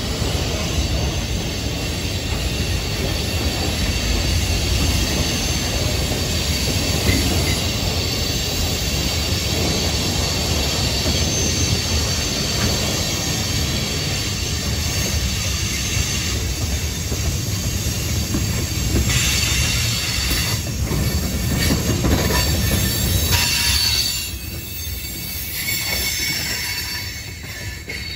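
Freight cars rolling past close by: a steady low rumble of steel wheels on the rails with thin, high wheel squeal over it. A few knocks come through late on, and the noise eases a little near the end.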